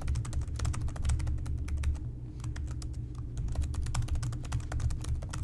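Rapid typing on a computer keyboard, a fast run of key clicks with short pauses about two and three seconds in, over a steady low hum.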